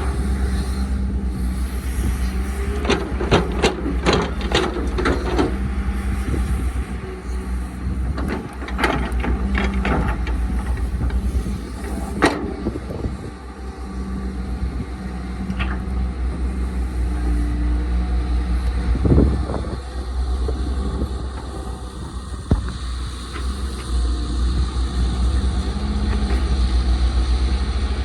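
Caterpillar excavator's diesel engine running steadily at a low pitch, with clusters of clanks and knocks about three to five seconds in and again around nine to ten seconds, and a single sharp knock near twelve seconds.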